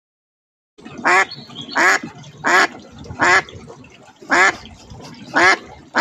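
A duck quacking in a steady series: about six loud, short quacks, one roughly every two-thirds of a second, cutting in suddenly about a second in.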